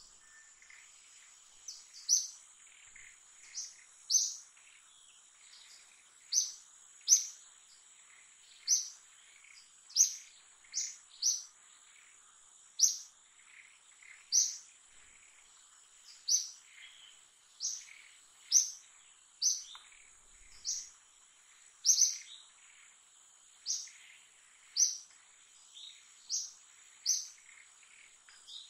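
A forest bird calling with short, sharp, high chirps, repeated roughly once a second, over a steady high-pitched insect drone.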